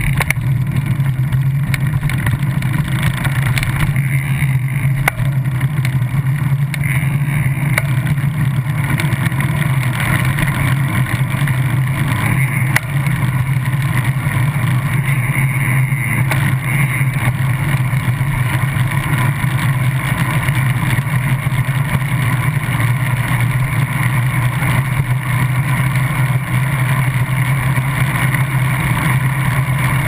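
Steady road and tyre noise from a moving bicycle, picked up close to the wheel by a camera on the quick-release skewer mount. A strong low hum runs throughout.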